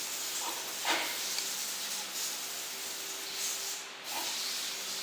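Steady hiss with a low machine hum, and a few light knocks about half a second in, near one second and about four seconds in.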